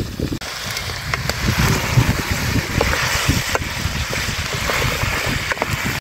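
Wind buffeting the microphone, a gusty low rumble over a steady hiss, with a few sharp clicks.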